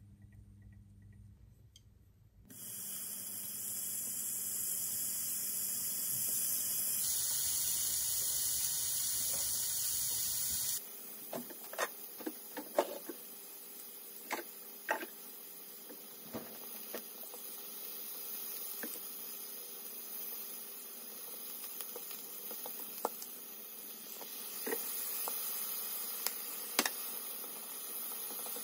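Strips of pork frying in oil in a hot nonstick pan: a steady sizzle with scattered sharp pops and clicks.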